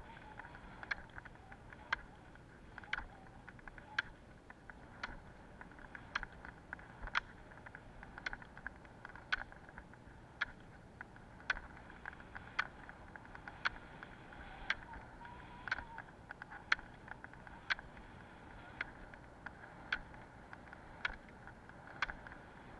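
Roller-ski pole tips clicking on asphalt about once a second in a steady poling rhythm, over the even rolling noise of the skis' wheels on the road.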